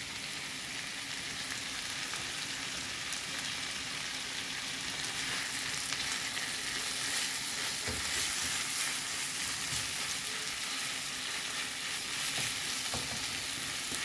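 Sliced tandoori chicken tikka frying with onions and peppers in a pan, sizzling steadily. A few light knocks of the stirring spoon come about eight seconds in and again near the end.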